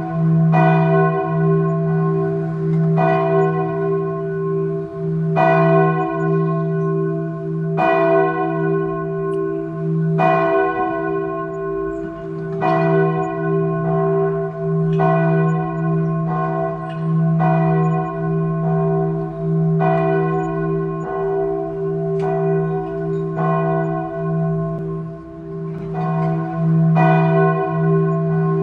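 Church tower bell tolling steadily, one strike about every two and a half seconds, each stroke ringing on and overlapping the next.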